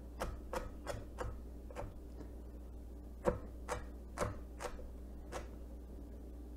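Chef's knife slicing a celery stalk on a wooden cutting board: about a dozen light, uneven taps of the blade on the board, with a pause of about a second midway, stopping shortly before the end.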